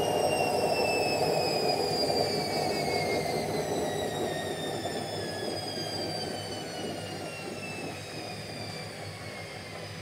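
Indesit front-loading washing machine slowing down at the end of its spin cycle: the motor's whine falls steadily in pitch while the drum's rumble fades.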